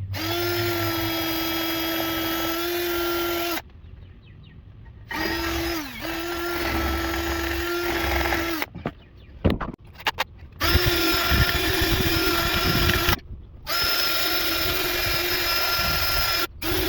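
Drill spinning a cleaning brush against the brake caliper bracket to scrub dirt and grime from where the pads sit and slide. It runs at a steady pitch in about five runs of a few seconds each, with short pauses, and winds down once about six seconds in.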